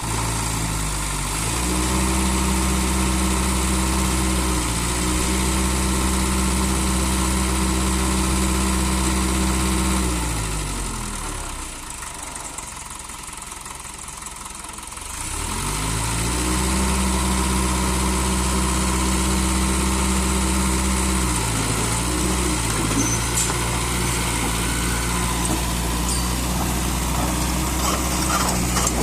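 Mitsubishi BD2E bulldozer's diesel engine revving up and running steadily under throttle, then dropping back to a low idle about halfway through before revving up again. It dips briefly near the end and runs on at a slightly lower speed.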